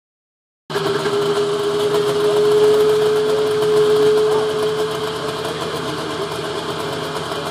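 Snowmobile engine running steadily at a low idle, with one strong steady hum; it starts abruptly less than a second in.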